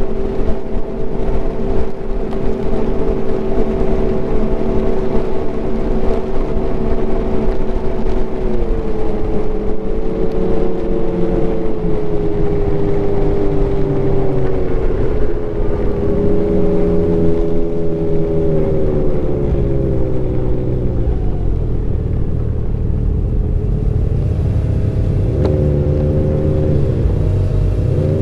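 Ski-Doo Renegade's 900 ACE Turbo three-cylinder engine running at steady trail speed. About eight seconds in, its pitch starts dropping in steps as the snowmobile slows, and it runs lower for the rest.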